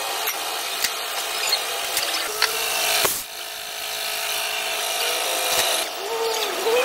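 Power tool running steadily while a motorcycle tyre is being changed, with a few sharp clicks and a short break about three seconds in.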